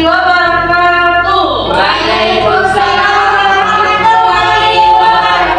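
Song with female and children's voices singing a sustained melody, as in a children's song.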